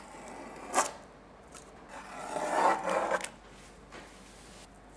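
Kitchen knife cutting through roasted vegetables on a cutting board: a sharp knock of the blade about a second in, then a rough scraping stretch in the middle.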